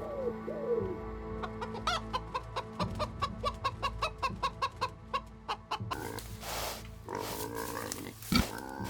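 Chicken clucking in a quick series of short calls, about three or four a second, after two low cooing calls at the start. A sharp knock comes near the end.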